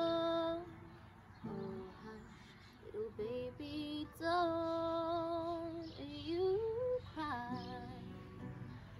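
Woman singing the closing phrases of a slow song, with long held notes sung with vibrato, a rising run and then falling notes, to her own acoustic guitar accompaniment. The voice stops about eight seconds in while the guitar rings on.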